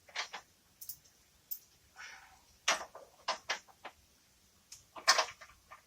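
Steel angle bracket and bolt clicking and knocking against the bodywork as they are worked into place by hand: irregular short clicks, with a cluster about three seconds in and another near the end.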